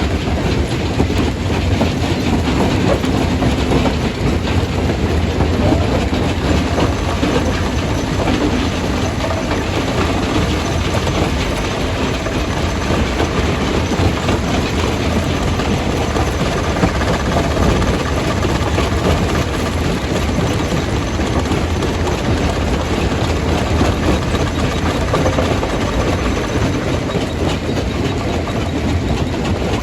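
Jaw crusher crushing stone: continuous dense rattling and knocking of rock over a steady low rumble from the machinery.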